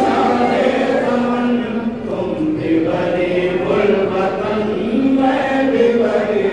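A noha, the Shia lament for Muharram, chanted by a male reciter into a microphone in long held notes, with a group of mourners' voices joining in.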